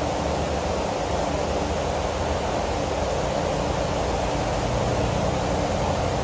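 Rainstorm: rain falling steadily in an even, unbroken hiss, with a faint low hum beneath it.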